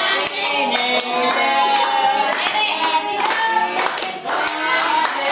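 A group singing a birthday song together while clapping their hands along.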